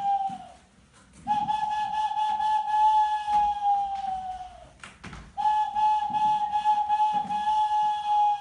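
A small wind instrument, blown in cupped hands, sounding two long held notes of the same pitch; each note sags slightly in pitch as it ends, and the second starts about five seconds in.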